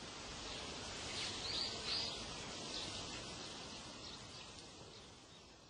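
Dawn ambience sound effect: a steady outdoor hiss with small birds chirping a few times, fading down toward the end. It marks the night passing into daybreak.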